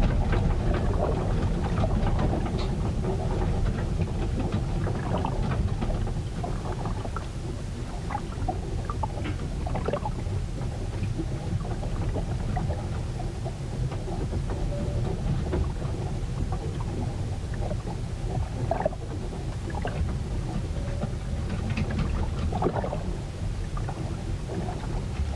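Storm sounds heard on board a ship: a heavy, steady low rumble of wind and sea, with many small splashes and knocks scattered through it.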